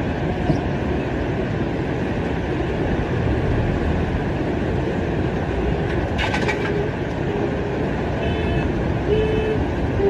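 Floodwater rushing in a steady loud torrent. About six seconds in there is a brief clatter, and from then on a car horn gives short honks about once a second.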